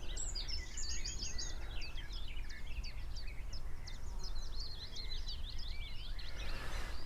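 Songbirds singing: a dense run of quick, high chirps and warbling notes, busiest in the middle, over a steady low background rumble.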